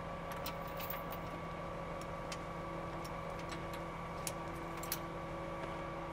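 A truck's diesel engine idling with a steady hum, while a dozen or so light clicks fall at irregular moments.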